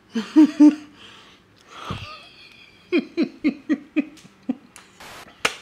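A man's wordless vocal sounds: a few short pleased "mm" sounds, then a run of quick chuckles, about five a second, in the middle. A sharp knock comes near the end.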